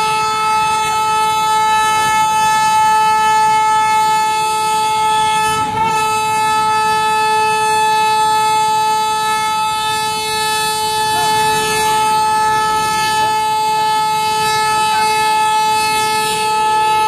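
Train horn held in one long, steady blast, with a brief hitch about six seconds in.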